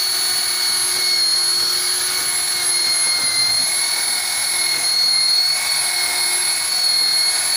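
Electric rotary car polisher with a foam pad running at speed while buffing a car's painted panel: a steady high motor whine that wavers slightly in pitch as the pad is pressed and moved.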